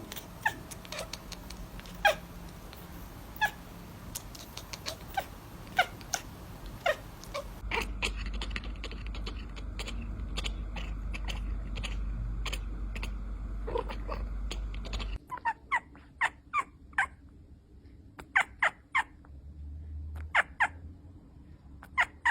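Domestic cats making many short, high calls in quick succession, across three separate clips. A low steady rumble runs under the middle clip.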